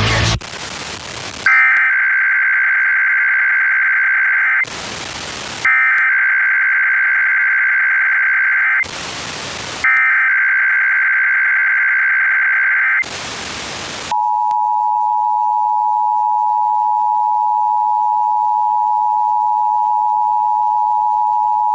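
Emergency Alert System broadcast: the SAME digital header is sent three times as bursts of warbling data tones, each about three seconds long with about a second of hiss between them. The steady two-tone EAS attention signal then follows and holds on.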